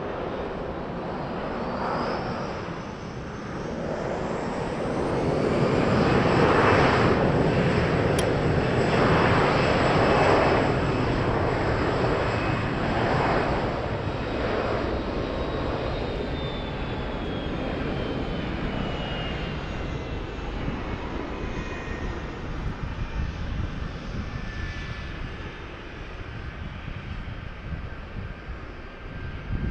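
A jet airliner's engines on the runway, growing loud a few seconds in and then easing off, with a high whine that slowly falls in pitch.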